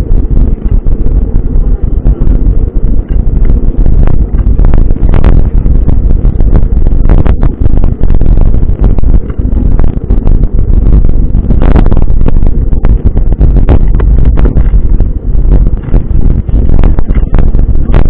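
Heavy wind buffeting on an action camera's microphone while riding a mountain bike, a loud, deep rumble, broken by a few sharp knocks.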